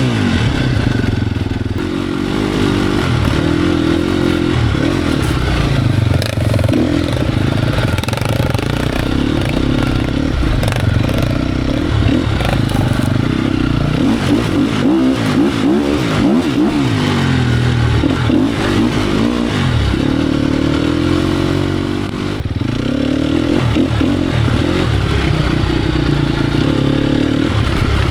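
Sherco 250 SEF Factory four-stroke single-cylinder enduro motorcycle engine being ridden hard, revving up and dropping back again and again as the throttle opens and closes, with scattered knocks and clatter from the bike.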